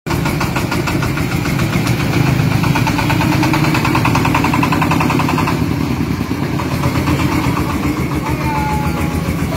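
Single-cylinder diesel engine of a homemade three-wheeled công nông tractor-truck chugging steadily with a rapid even beat as it pulls a trailer loaded with concrete posts past. The sound thins out about halfway through as it moves away.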